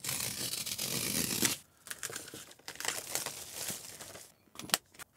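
A cardboard mailer being torn open, one continuous tear lasting about a second and a half, then plastic shrink-wrap crinkling as the package inside is handled, with a couple of sharp clicks near the end.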